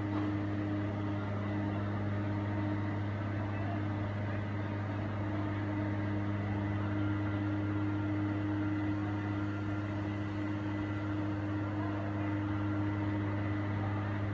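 A steady, unchanging low engine drone, like a heavy vehicle's engine running at constant speed, with faint distant voices under it.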